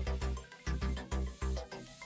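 Background music with a steady kick-drum beat under pitched instrument notes.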